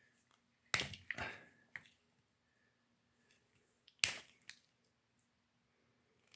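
Sharp snips and clicks of wire strippers cutting back the insulation on a power adaptor's lead: three close together about a second in, then two more around four seconds.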